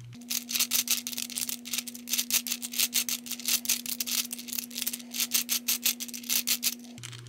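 Plastic balls of a Hungarian Rings puzzle clicking and rattling as the rings are turned, a quick run of several clicks a second.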